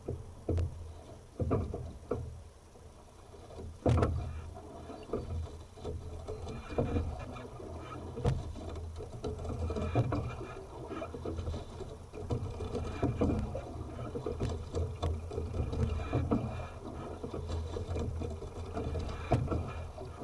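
A single scull being rowed: repeated knocks of the sculling oars turning in their oarlocks and splashes of the blades with each stroke, over a steady low rumble.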